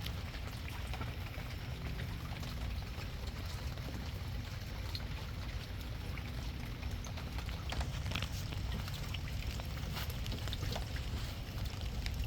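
Steady rain falling, with many separate drops ticking over a continuous hiss of rainfall and a steady low rumble underneath.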